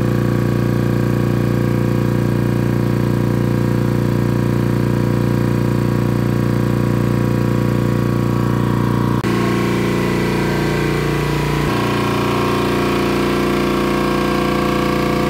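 Hamworthy V250 two-stage reciprocating air compressor, driven by an electric motor, running steadily while charging an air receiver. The sound shifts abruptly twice, about nine and twelve seconds in.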